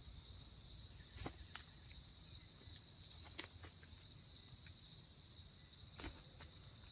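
Steady high-pitched drone of insects, typical of crickets, with a few short sharp clicks about a second in, around three and a half seconds in and near six seconds.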